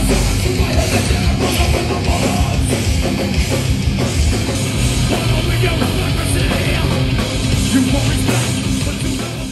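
Loud heavy metal music with fast, dense drumming.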